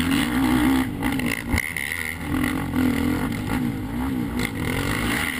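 Race ATV engines revving hard, heard close up, the pitch repeatedly rising and falling as the throttle is opened and closed through the corners.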